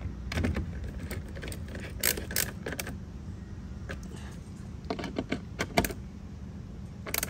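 Screwdriver driving a fog lamp's mounting screw into its plastic bumper bracket: scattered light clicks and scrapes in small clusters. A steady low hum runs underneath.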